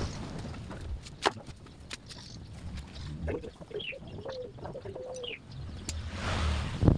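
Sharp metal clicks and taps, the loudest a little over a second in, as a screwdriver works on the rocker arms of a Suzuki engine's bare cylinder head. A pigeon coos in the middle, and a rush of noise swells near the end.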